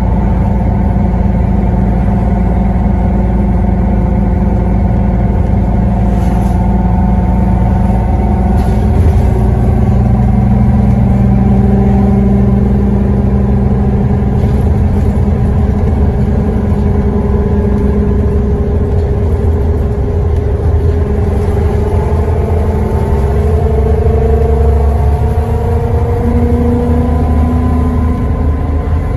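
Scania N94UD double-decker bus under way and driven hard: a loud engine rumble with a whining differential, its several whining tones slowly rising and falling with road speed.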